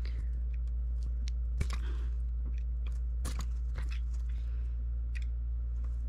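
Utility knife blade slitting the molded plastic that joins the twisted pairs of a tactical Cat6 cable as the cable is pulled through it, giving faint scattered crunching clicks over a steady low hum.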